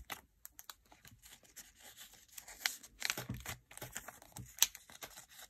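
Plastic binder pocket pages and photocards being handled, crinkling and rustling with scattered light clicks and taps.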